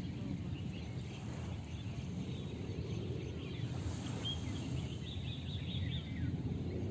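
Small birds chirping, with a quick run of short chirps about four to five seconds in, over a steady low outdoor background rumble.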